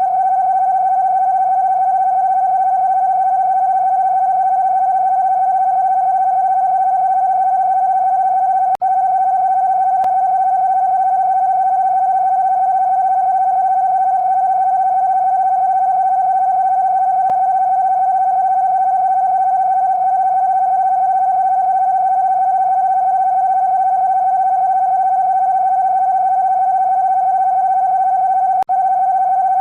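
Emergency Alert System (EAS) alarm: a loud, steady, mid-pitched electronic tone held unbroken except for two very brief dropouts, one about a third of the way in and one near the end.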